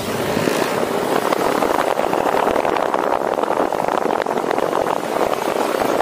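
Motor scooter engine running while the scooter is under way, a steady noisy sound.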